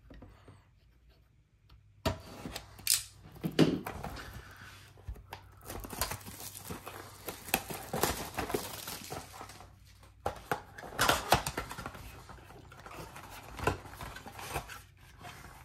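Box cutter slitting a cardboard trading-card blaster box, then the box being handled and its flap pulled open. It is an uneven run of scraping, crinkling and tearing sounds with sharp spikes, starting about two seconds in.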